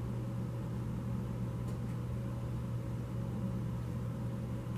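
A steady low hum with a faint even hiss: background room noise, with no other distinct sound.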